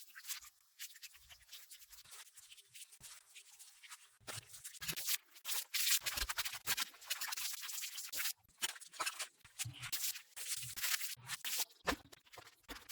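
Irregular, scratchy rubbing and scraping strokes on a rug's pile, quicker and denser from about four seconds in, with occasional soft thumps.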